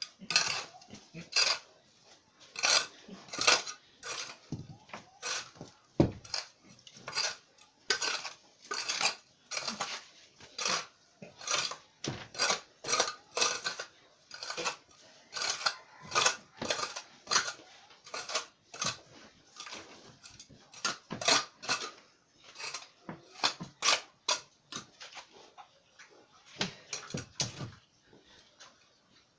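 Repeated blows of a hand tool tamping sand packed back into a hole in the floor, about one to two strikes a second with a clattering edge, stopping near the end.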